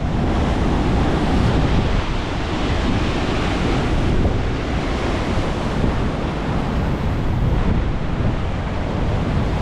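Hurricane storm surf surging and washing in foam around the legs of wooden beach-access stairs, with strong wind buffeting the microphone throughout.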